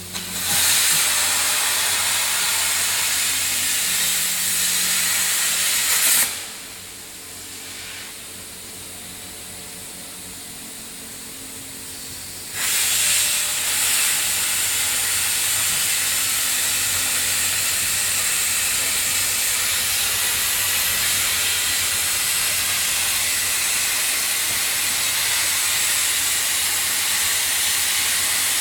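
CNC plasma cutting torch arc hissing steadily as it cuts through steel plate. The hiss cuts off about six seconds in, leaving a quieter low hum, and starts again suddenly about six seconds later.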